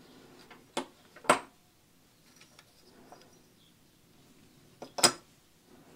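Sharp clicks and clacks from the small metal and plastic parts of a disassembled e-bike brake lever being handled and fitted together. They come in two pairs, one about a second in and one about five seconds in.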